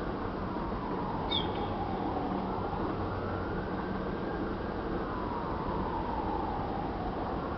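A siren wailing in slow rises and falls, about one cycle every four to five seconds, over a steady rumbling noise. A brief high chirp cuts in about a second in.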